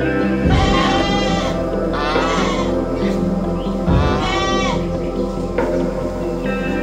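Livestock bleating, three wavering calls, over a steady background music track.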